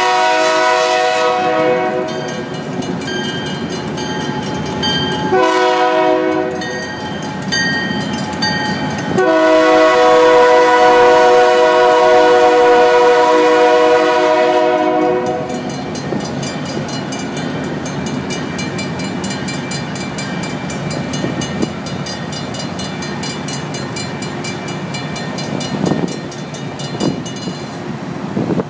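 CN diesel locomotive 5283 sounding its air horn as it crosses: three blasts, the last held about six seconds, then the engine rumbling past. Safetran hybrid crossing bells ring rapidly and steadily throughout.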